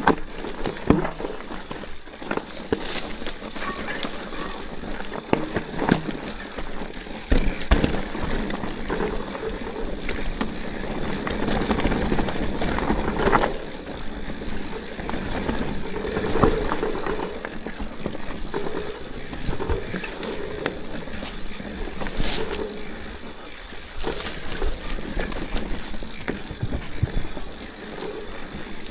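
Orbea Rallon mountain bike riding over a rough, washed-out dirt trail: knobby tyres rolling and crunching over the ground, with frequent sharp knocks and rattles as the bike hits rocks and bumps.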